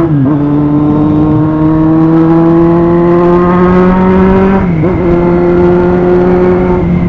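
Kawasaki Z800 motorcycle's inline-four engine pulling under throttle while riding, its pitch climbing slowly, with two brief drops in revs at gear changes, just after the start and a little under five seconds in, then holding steady.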